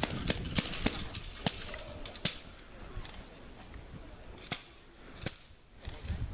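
A series of sharp clicks or snaps at irregular intervals: several close together in the first couple of seconds, then a few more spread out.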